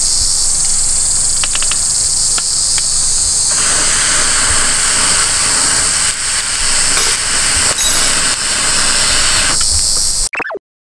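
Breath blown through a telescoping metal fire-blowing pipe into burning charcoal, a steady hiss from about three and a half seconds in until shortly before the end, over a steady high-pitched insect chorus. The sound cuts off suddenly near the end.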